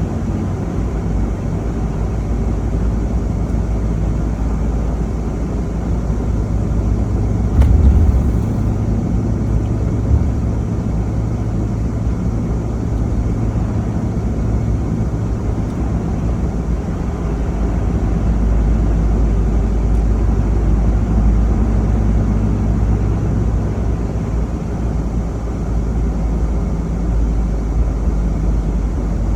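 Car driving along the road, its engine and tyres making a steady low rumble. There is a brief louder bump about a third of the way in and a short knock shortly after.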